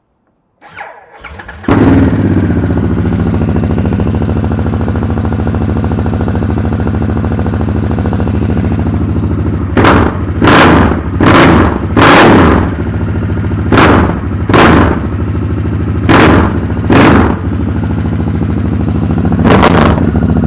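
Harley-Davidson Sportster S (2021) 1,250 cc V-twin, exhaust through slip-on mufflers, cranked on the starter and catching about two seconds in, then idling steadily. From about halfway it is revved in nine quick throttle blips: four close together, two pairs, and a last single blip near the end.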